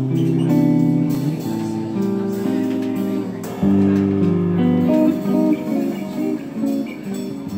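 Jazz electric guitar playing held chords, moving to a run of short single notes about five seconds in, over upright double bass.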